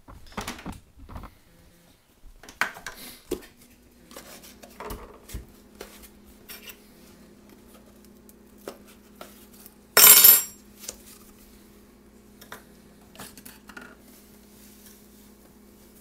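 Tapping, clinking and scraping of a metal spoon against a cardboard Borax box and kitchen containers as the box's spout is pried open, with one loud brief noise about ten seconds in. A faint steady hum starts about three seconds in.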